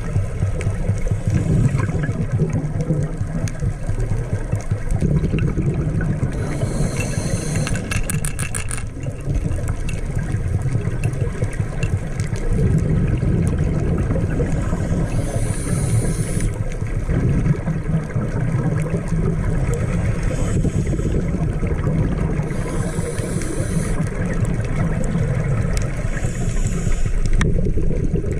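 Underwater recording: a boat engine's steady low drone carried through the water, with hissing bursts of a scuba diver's exhaled regulator bubbles roughly every eight seconds and a quick run of clicks about eight seconds in.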